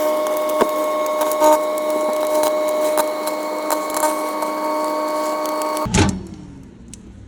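Microwave oven running with a steady hum, with sharp crackles and pops from the item heating inside. The hum cuts off with a clunk about six seconds in.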